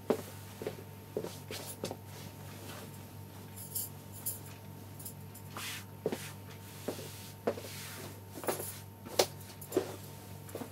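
Hands smoothing and patting down a white shroud sheet, giving short, irregular fabric rustles and soft taps over a steady low hum.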